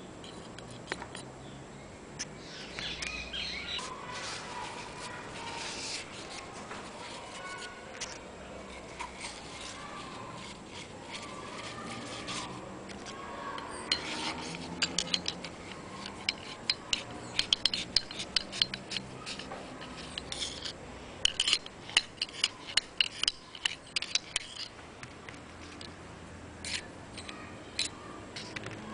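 Small metallic clicks and scraping as a rod is worked in the bore of a Citroën 3CV brake master cylinder during its strip-down. The clicks come in a quick, irregular run through the second half.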